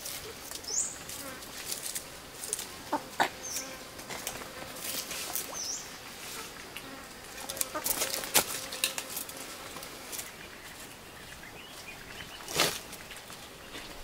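Dry leaves and spiny chestnut burrs rustling and scraping in short irregular crackles as the burrs are picked up with tongs and dropped into a woven bamboo basket. A few short high bird chirps sound in the first half.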